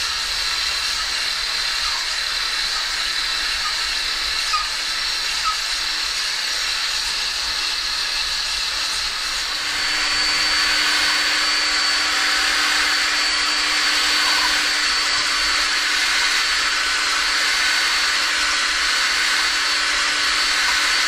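Cordless drill spinning a honing tool inside an oiled steam locomotive cylinder bore: a steady motor whine with a hissing scrub of the hone against the bore, louder from about ten seconds in.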